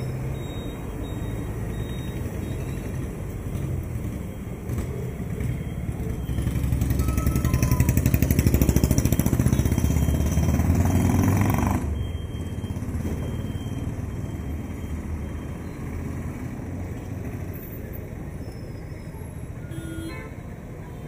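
Street traffic at an intersection: the engines of passing vehicles. A louder engine rumbles close by from about six seconds in and stops abruptly about twelve seconds in.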